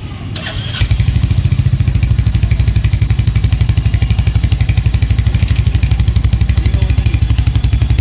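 Royal Enfield Hunter 350's single-cylinder engine started on the electric starter. It catches just under a second in and settles into a steady, even idle thump, heard close at the exhaust muffler.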